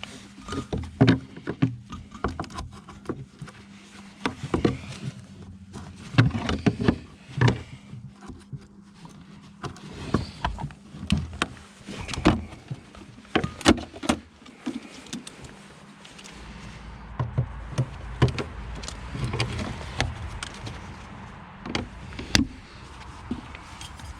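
Irregular knocks and clanks of metal parts on a scrapped refrigerator being worked at by hand. A steady low rumble joins about two-thirds of the way in.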